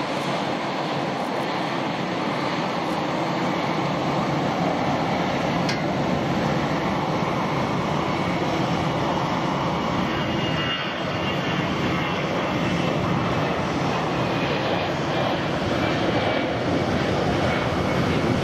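Airbus A350-900's Rolls-Royce Trent XWB jet engines running as the airliner rolls out along the runway after landing: a steady jet noise with a faint high whine about halfway through.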